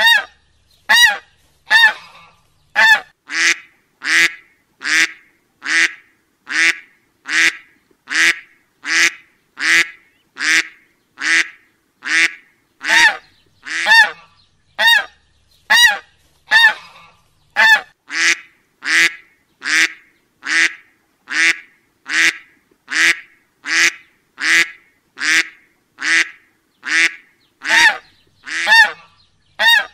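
A duck quacking in short, identical nasal calls, repeated at an even pace of about three every two seconds with silence between them, like a single quack played in a loop.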